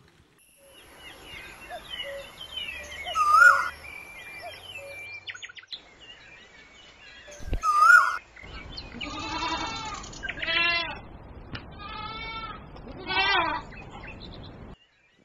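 Goats bleating, four quavering bleats in the second half. Before them, birds chirp, with two loud short calls.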